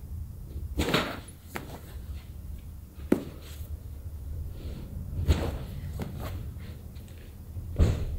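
Handling noises from a foot and ankle mobilization on a treatment table: a few soft thuds and knocks, with one short sharp click about three seconds in.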